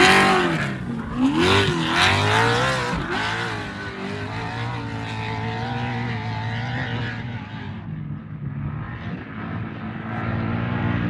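Off-road race truck engine revving hard as it passes close, its pitch rising and falling over the first few seconds, then settling into a steadier engine note that fades as the truck moves away.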